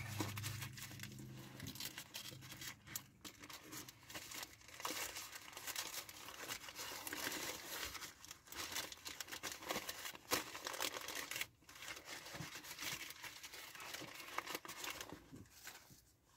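Wrapper of a KFC honey barbecue wrap being crinkled and torn open, with irregular rustling and crackling that dies away near the end.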